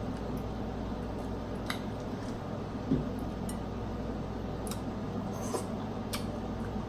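Snow crab legs being cracked and picked by hand, with wet, saucy squishing: a few sharp clicks and one louder knock about three seconds in, over a steady low hum.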